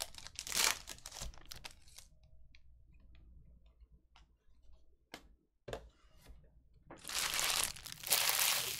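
Foil trading-card pack wrapper crinkling and tearing open, then small clicks as the cards are handled. Near the end a louder stretch of rustling noise.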